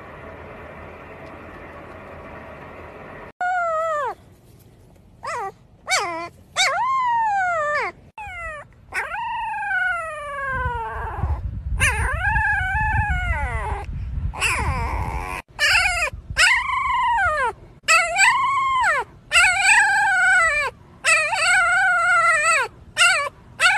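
Very young husky puppies howling: a long string of short, high howls, each rising and then sliding down in pitch, after a few seconds of faint steady background noise. Wind rumbles on the microphone for a few seconds in the middle.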